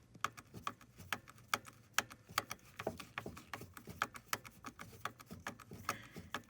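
A string of sharp, irregular clicks, several a second, from a Torx driver backing a long screw out of a 2006 Jeep Wrangler's headlight/turn-signal switch module on the steering column.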